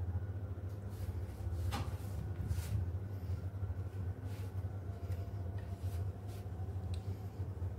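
Steady low hum throughout, with faint soft strokes and handling sounds as a silicone pastry brush spreads melted butter over thin yufka pastry sheets. About two seconds in there is one light knock with a short ring.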